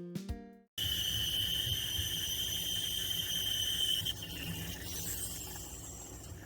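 A guitar tune cuts off under a second in, giving way to steady kitchen background noise with a thin high whine that fades out about four seconds in.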